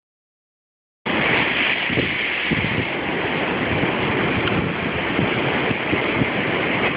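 Heavy storm surf crashing against rocky cliffs, with strong wind buffeting the microphone in uneven rumbling gusts. The sound starts abruptly about a second in.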